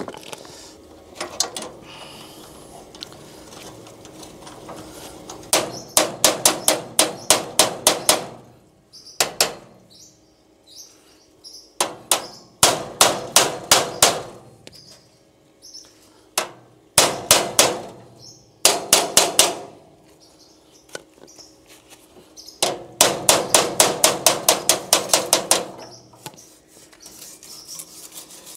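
Hammer striking metal in several quick runs of sharp blows, about four a second, with short pauses between the runs.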